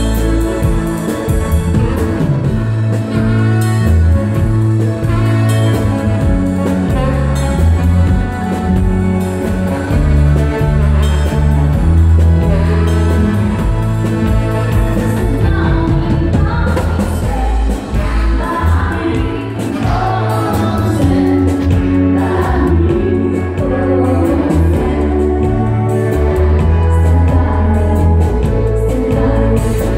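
Live band playing a song with singing, electric guitar, keyboard and saxophone over a steady bass line.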